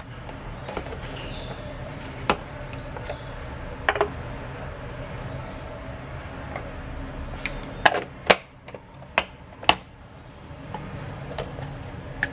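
Plastic food tubs being handled on a table: a cream cheese tub and a butter box opened and set down, with sharp clicks and knocks of the lids, several in quick succession about eight to ten seconds in.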